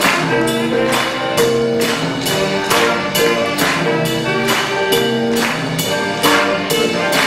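School concert band playing: wind instruments hold sustained chords over percussion strikes that fall steadily, about two a second.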